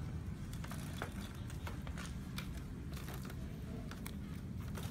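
Light clicks and rattles from the aluminium-alloy frame of a folding electric wheelchair as its backrest is folded down onto the seat, over a steady low background rumble.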